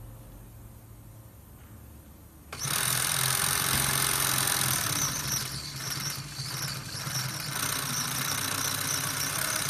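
An industrial curtain sewing machine, stitching snap-button S-fold heading tape onto curtain fabric, starts up suddenly about two and a half seconds in and runs steadily with a low hum and a high whine. Before that only a faint low hum is heard.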